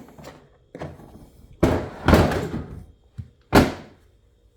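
Hard plastic Ryobi LINK tool boxes being knocked and pushed together while trying to latch one onto the stack: a few hollow thuds and scraping knocks, the sharpest and loudest about three and a half seconds in.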